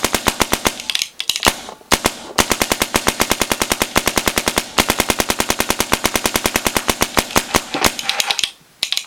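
Paintball marker firing reballs in long rapid strings, about nine shots a second, with short breaks between strings. The reballs are fed by an Empire Prophecy hopper and fire without a jam.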